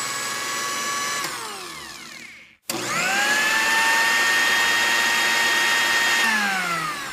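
Electric blender motor whining at speed, switched off about a second in and winding down to a stop. It is switched straight back on, spins up with a rising whine and runs steadily, then starts winding down near the end.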